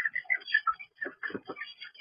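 Chickens calling in short, rapid notes, mixed with quick clicking and tapping sounds.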